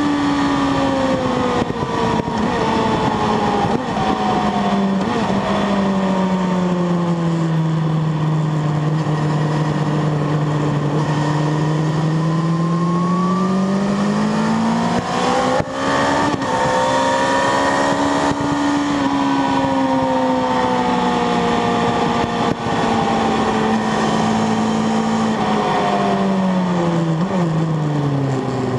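Sport motorcycle engine heard from onboard at track speed, with wind rush. Its note sinks slowly for the first third, climbs again, breaks briefly about halfway through, then falls away in steps near the end.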